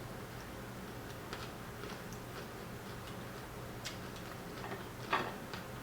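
Quiet chewing: scattered soft mouth clicks and small crunches, a louder one about five seconds in, over a steady low hum.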